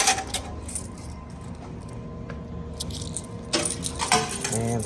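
Quarters clinking and clattering in a coin pusher machine, metal coins dropping and striking each other in a few scattered bursts, most busily near the start and again in the last second and a half.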